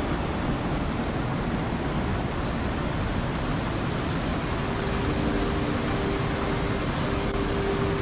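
Steady rushing noise with no distinct events, joined about five seconds in by a faint steady hum of two low tones.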